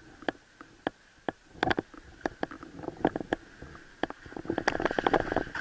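Footsteps crunching and scraping over rubble and broken masonry, a few irregular steps a second that come thicker and louder toward the end.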